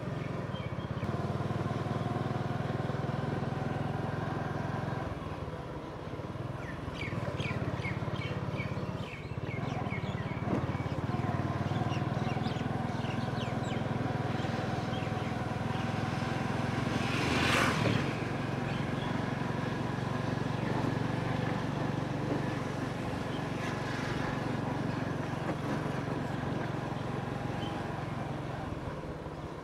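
Small commuter motorcycle engine running steadily while riding at low speed, heard from the rider's seat. About two-thirds of the way through, a brief rushing whoosh rises over it and falls away.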